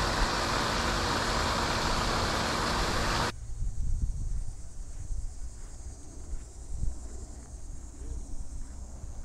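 Steady rush of a pond fountain spraying water, with a steady low hum under it. About three seconds in it cuts off abruptly to a much quieter low rumble with a few faint clicks.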